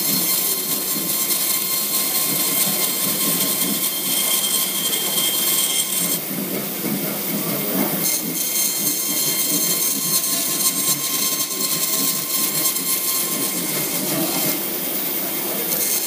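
Vertical bandsaw running, its blade cutting slowly through a small wooden board: a steady mechanical hiss with a thin constant hum.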